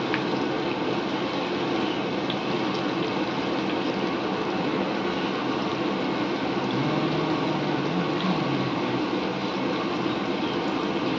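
Mung dal vadas deep-frying in a kadhai of hot oil: a steady sizzling, bubbling hiss.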